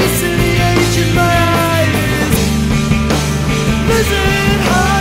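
Punk rock band recording playing loudly: electric guitars and bass held over regular drum hits.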